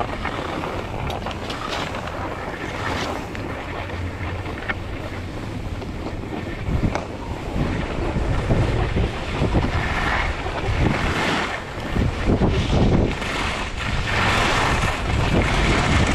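Wind buffeting the GoPro's microphone as a skier heads downhill, with skis hissing over groomed snow. It gets louder and gustier from about seven seconds in as speed picks up.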